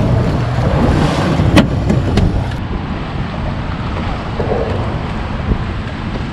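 Wind on the microphone and water rushing along the hull of a moving boat, with two sharp clicks a little over a second in. About two and a half seconds in the sound cuts to a steadier, duller wind and water noise.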